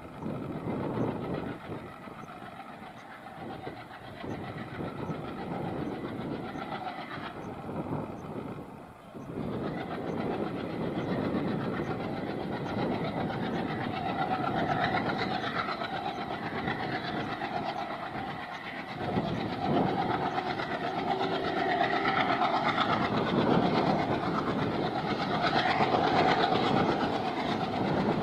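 Diesel locomotive hauling a coach as it approaches: engine running and wheels clattering on the rails, growing louder as it nears.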